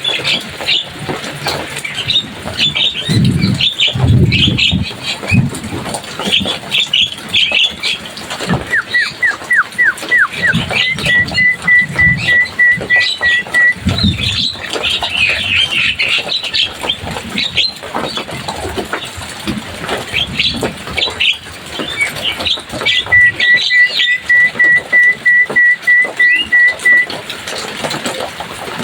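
Javan myna (jalak kebo) singing: a busy chatter of harsh, varied notes, twice breaking into a run of rapid, evenly repeated whistled notes.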